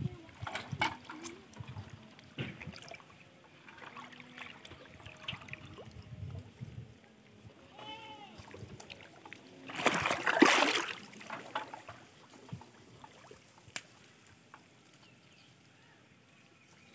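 Shallow water sloshing and splashing as someone wades and handles plastic-bottle float traps among water plants, with a louder rush of splashing about ten seconds in.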